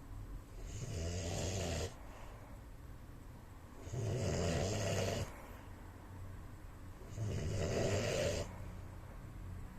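A man snoring in his sleep: three long, rasping snores, each over a second long, coming about every three seconds, with quieter breathing between them.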